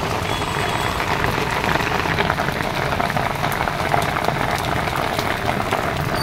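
Rain falling steadily: a dense, even patter.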